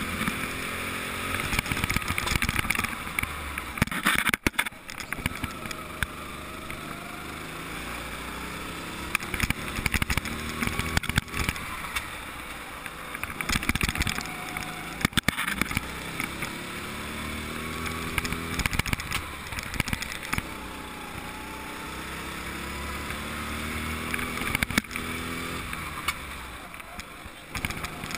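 Go-kart engine heard from on board, revving up in repeated rising climbs and falling off between them as the kart goes round the track. Frequent short knocks and rattles run through it.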